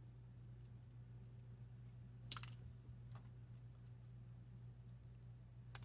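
Light clicks and ticks of small screws and a screwdriver as a laptop is put back together, with two sharper clicks, one a little over two seconds in and one near the end.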